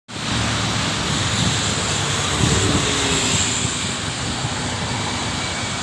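Steady noise of road traffic passing on a busy road, mixed with wind buffeting the microphone.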